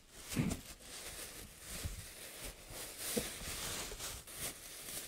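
Large plastic packing bag crinkling and rustling as it is worked back off a printer in its cardboard box, with a dull bump about half a second in.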